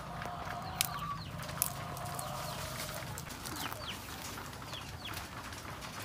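Free-roaming native chickens clucking, with a drawn-out hen call in the first couple of seconds and short high falling chirps later on.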